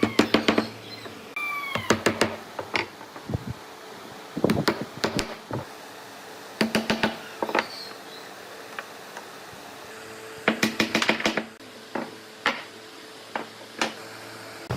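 Rapid knocking on wood, in short bursts of several quick strikes with pauses between.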